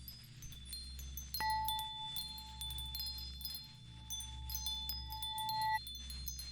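Electronic music: scattered chime-like bell tones over a low drone that swells and dips in a slow pulse, with one clear held tone ringing for about four seconds from around a second and a half in.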